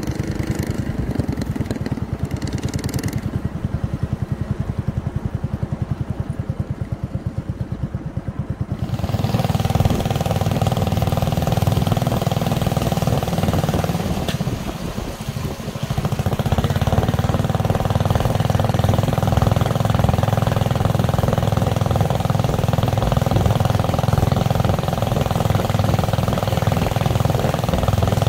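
Boat engine idling with an even low throb, then throttled up about nine seconds in and running louder and steadily, easing off briefly in the middle before picking up again.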